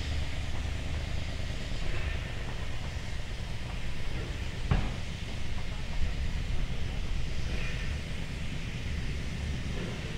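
Diesel railbus running slowly toward the listener, a steady low engine rumble, with a single sharp knock about halfway through.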